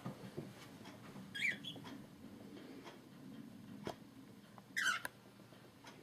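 Two short, high-pitched chirps from a small pet parrot, about three seconds apart, with a few faint clicks between them.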